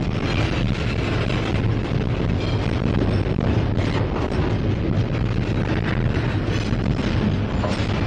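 Double-stack container train rolling past at close range: a steady rumble of well cars and steel wheels on the rails, with a few sharp knocks and clanks.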